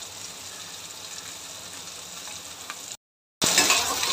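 Masala-coated sardines sizzling as they fry in oil in a stainless steel pan. The sizzle drops out for a moment about three seconds in and comes back louder.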